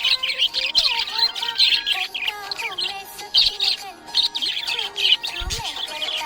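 Budgies chirping and warbling without a break: rapid, overlapping high chirps over lower wavering notes.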